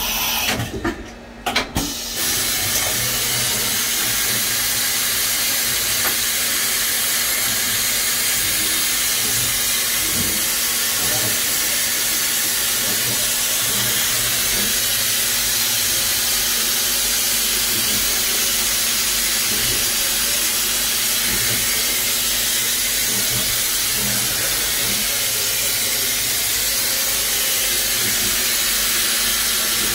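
Focus Seiki TP-750 CNC vertical machining center running: a steady, even hiss with a faint steady hum beneath it, starting about two seconds in after a few short, uneven sounds.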